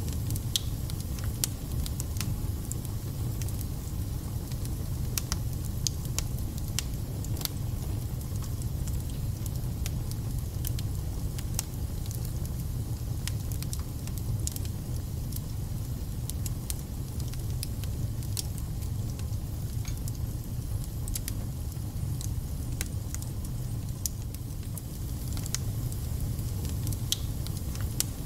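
Wood fire burning in a fireplace: a steady low rumble with frequent sharp crackles and pops from the burning logs, coming at irregular intervals.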